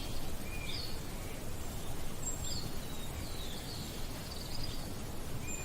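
Outdoor background: a low steady rumble with a few short, scattered bird chirps and whistles.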